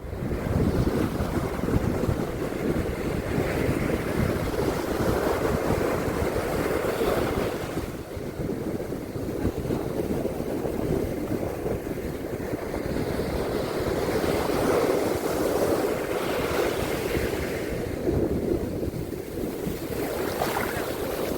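Ocean surf washing onto a beach: a continuous rush of waves that swells and eases every few seconds, with wind rumbling on the microphone.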